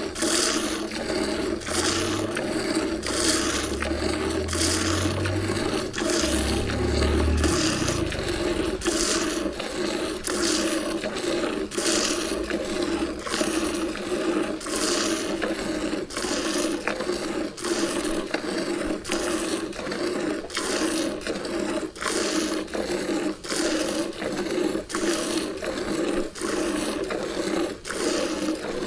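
Buffalo being milked by hand, the milk squirting into a pail in a steady rhythm of strokes, about one or two a second.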